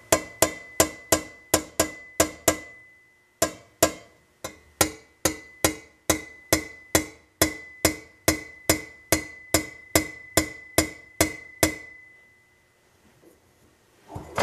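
Light tapping on a dented stainless steel trim strip backed by a small dolly, about three taps a second, each with a short metallic ring. The tapping pauses briefly after about two and a half seconds and stops about two seconds before the end.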